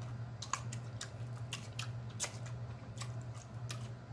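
Close-miked wet chewing and lip-smacking from eating rotisserie chicken, a scatter of short sharp clicks over a steady low hum.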